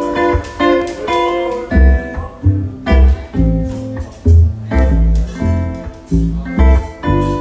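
Red archtop hollow-body electric guitar played through an amp, an instrumental passage of picked notes and chords, with deep low notes pulsing underneath from about two seconds in.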